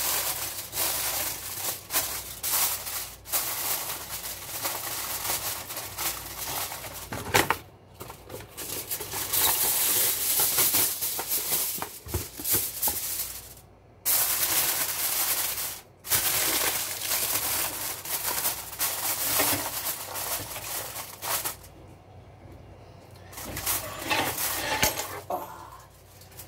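Aluminium foil crinkling and rustling as it is handled and crimped over a roasting pan, in several stretches with brief pauses.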